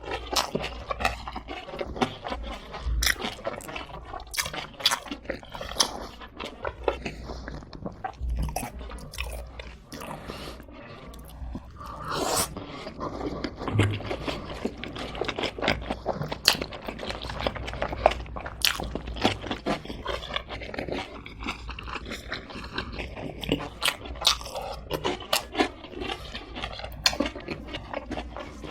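A person biting and chewing crispy fried chicken (pa-dak, fried chicken with green onions), with many sharp crunches throughout.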